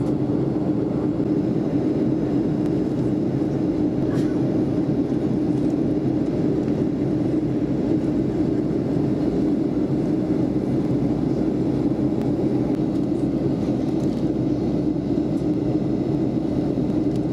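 Steady cabin noise inside a Boeing 737-400 on its approach to land: its CFM56-3 turbofan engines and the air rushing past the fuselage make a constant low hum.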